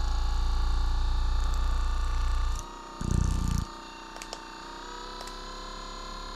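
RENPHO percussion massage gun running with a steady motor whine. For the first two and a half seconds, and again briefly about three seconds in, its ball head is pressed against a palm, adding a fast, loud, low thudding. In between and afterwards it runs free in the air.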